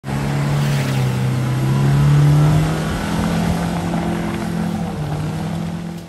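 A Mercedes-Benz E-Class (W210) sedan's engine revving high and held. Its pitch climbs for the first two seconds or so, then eases down in two steps.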